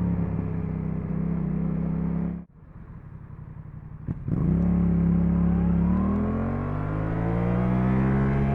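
Yamaha MT-07's parallel-twin engine through an Akrapovič titanium exhaust. Its note falls as the bike slows, cuts out abruptly about two and a half seconds in, then comes back about four seconds in, holds steady and rises again as the bike accelerates.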